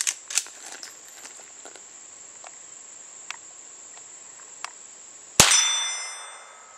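A few light metallic clicks near the start, then a single shot from a Henry Mare's Leg lever-action .22 Long Rifle pistol about five seconds in, with a ringing tail that fades over about a second. Crickets or other insects buzz steadily throughout.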